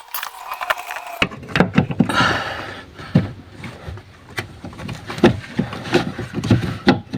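Irregular knocks and clicks of tools and metal parts being handled during car repair work, with a brief scraping noise about two seconds in.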